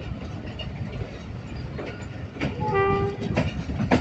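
Passenger train running along a station platform: a steady low rumble with the knock of wheels over rail joints. A short, steady high tone sounds for about half a second just under three seconds in.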